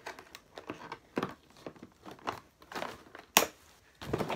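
Plastic and cardboard toy packaging being crinkled and pulled apart by hand in irregular rustles and crackles, with one sharp snap about three and a half seconds in.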